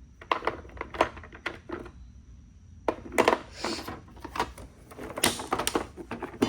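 Ratchet sets being handled in a toolbox: a run of irregular clicks and knocks from plastic cases and metal tools. After a short pause about two seconds in comes a denser, louder clatter.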